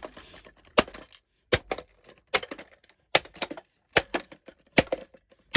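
Hammer striking the plastic body of a cheap corded stick vacuum, about eight sharp blows at a steady pace a little under a second apart, each followed by smaller clicks and clatter.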